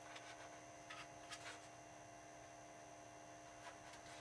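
Near silence: room tone with a steady electrical hum and a few faint, short scrapes about a second in.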